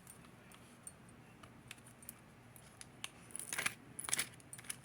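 Small metal costume-jewelry earrings clinking and jingling as they are handled, with a cluster of louder clinks about three to four seconds in.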